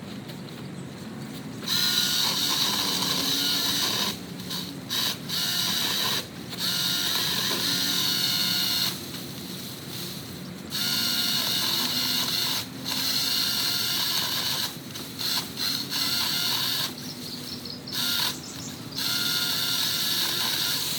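Battery-powered Sousky mini chainsaw on a pole extension, its electric motor and chain whining in a dozen or so runs, from short blips to a few seconds long, as the trigger is pulled and released while cutting branches. The chain keeps getting hung up in the branch when pressed too hard.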